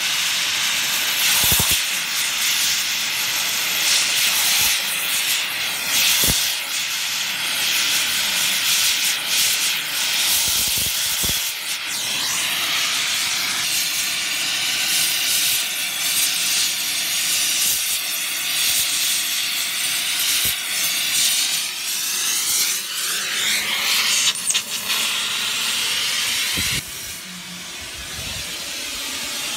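Oxy-fuel torch flame hissing steadily as it heats rusted bolts on a disc mower's cutter bar to free them, with a few knocks. The hiss cuts off near the end and a quieter sound follows.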